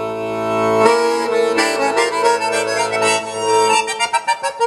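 Accordion music played back through loudspeakers driven by a single-ended Eimac 250TH transmitting-tube amplifier. Held chords over a steady bass give way, near the end, to short, quick detached notes.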